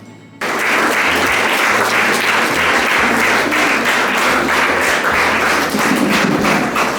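Audience applauding: dense, steady clapping that starts abruptly about half a second in.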